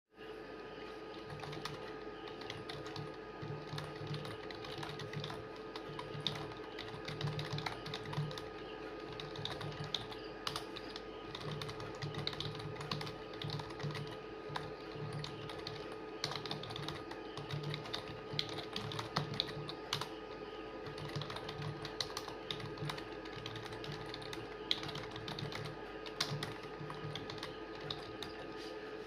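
Fast, continuous typing on a computer keyboard: a rapid, unbroken stream of keystrokes over a steady low hum.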